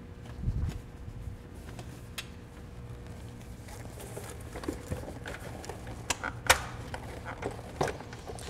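Clips on a car's air cleaner housing being unfastened by hand: a few scattered sharp clicks and light knocks over a low steady hum.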